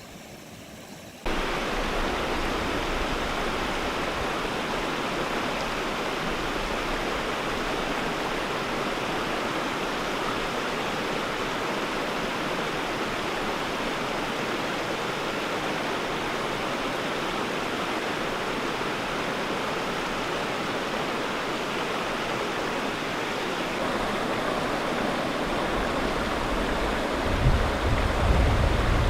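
Steady rush of flowing water from a creek or stream, starting abruptly about a second in. A low rumble joins it near the end.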